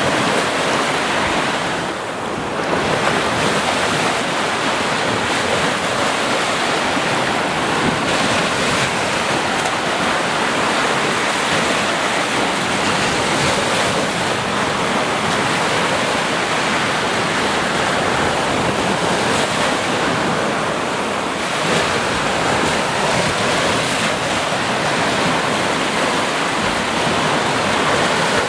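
Sea waves breaking and washing on a beach in a steady, continuous rush, with some wind noise on the microphone.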